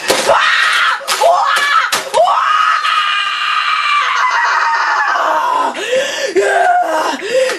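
A person screaming: a few short shrieks and sharp knocks, then one long high scream held for about three seconds, then shorter wavering cries.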